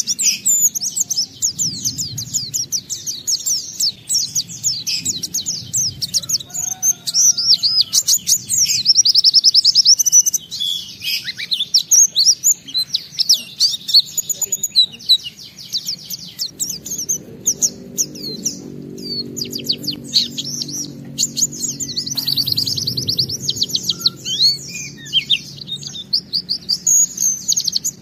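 A pleci (white-eye, Zosterops) singing in full voice, a fast, unbroken run of high, varied chirps and rapid trills of the kind pleci keepers call 'gacor' with 'isian', learned song material.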